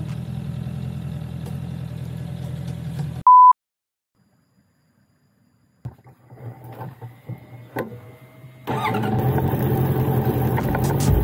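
A Honda CBR650R's inline-four engine idling steadily, cut by a short, loud electronic bleep tone after about three seconds and then a complete dropout. The engine comes back faintly, then loud and full as the bike rides off near the end.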